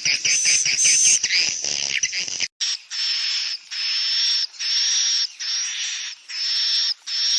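Swiftlet calls used as a lure sound for swiftlet houses, sold as the call of young swiftlets. Rapid high twittering fills the first two seconds or so, then comes a run of about six long, high, buzzy chirrs, each under a second, with short pauses between them.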